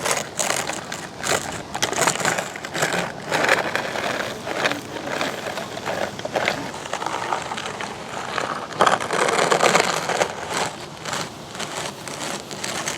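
Irregular gritty scraping and crunching of sand as it is dug and pushed with toy construction trucks, with a louder stretch about nine seconds in.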